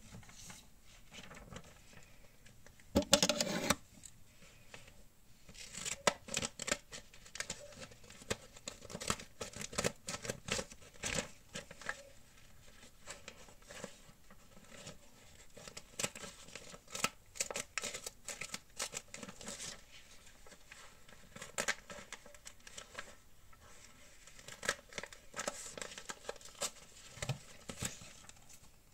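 Paper and craft pieces handled by hand on a journal page: irregular crinkling, rustling and small taps, with one louder burst of rustling about three seconds in.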